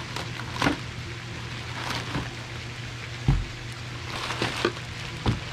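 Clear plastic wrapping crinkling and rustling as a paddle is unwrapped by hand, with a single dull knock about three seconds in.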